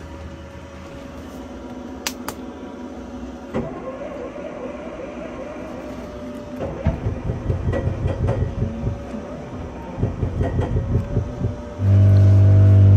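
A small car engine being cranked by its starter in two rhythmic bursts of a few seconds each, without catching. Near the end a much louder steady drone starts suddenly.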